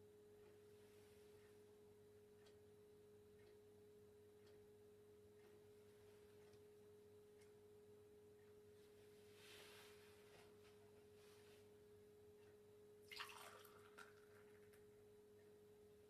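Near silence: room tone with a faint steady hum, and a brief faint noise about three-quarters of the way through.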